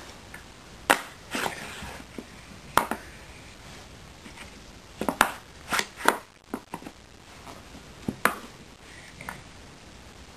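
Puzzle pieces knocking and clattering against the puzzle board as a toddler handles them and tries to fit them in: about eight sharp knocks at irregular intervals, several close together in the middle.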